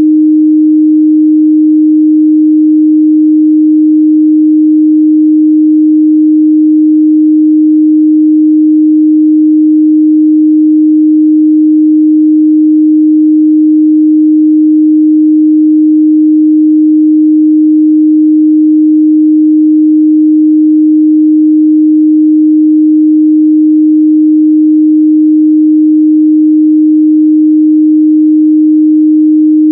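A steady, loud 308 Hz pure sine tone, held unchanged at one pitch: a synthesized test tone for checking speaker and headphone response.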